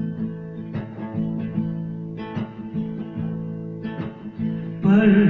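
Acoustic guitar strummed in an instrumental break between sung lines, chords ringing between strokes. A singing voice comes in near the end.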